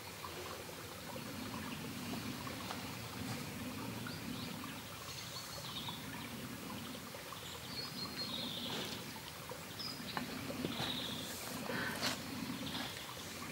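Woodland ambience: a steady low background rumble with small birds chirping now and then in the second half, and a few soft clicks near the end.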